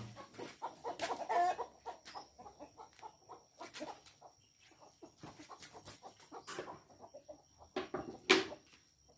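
Chickens clucking in the background, in short scattered calls, with a few sharp knocks from handling a knife, a plastic basin and a wooden chopping board. The loudest knock comes near the end.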